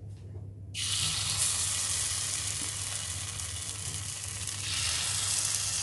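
Dosa batter sizzling as it is spooned into the hot, oil-greased cavities of an appe (paniyaram) pan. The sizzle starts suddenly about a second in and swells again near the end as more batter goes in.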